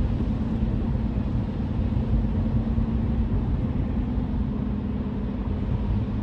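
Car cabin noise while driving at speed: a steady low engine and road rumble with a constant hum and an even hiss over it.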